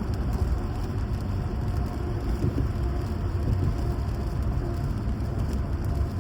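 A car driving in the rain, heard from inside: a steady low rumble of engine and road noise, with the hiss of rain and wet tyres.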